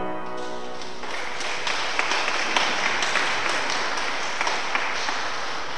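The final chord of a 1955 Wicks pipe organ dies away in the reverberant room. About a second in, audience applause begins and carries on steadily.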